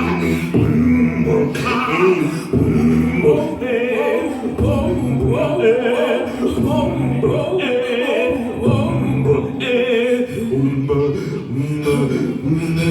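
A cappella vocal music: voices singing a wavering melody with beatboxed mouth percussion, the sharp clicks coming only now and then.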